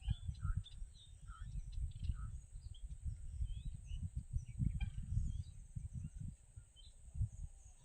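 Outdoor ambience: birds chirping in short calls over a steady high insect drone, with an uneven low rumble underneath.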